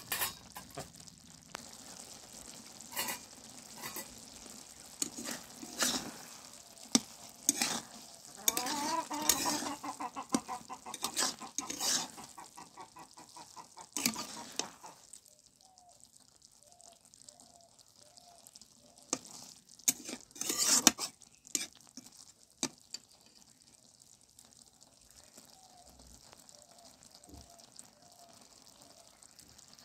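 A steel spatula scraping and knocking against an iron kadhai as masala noodles are stirred, with a low sizzle of the simmering sauce underneath. The stirring scrapes come thick through the first half, stop, then come again in a short cluster later on.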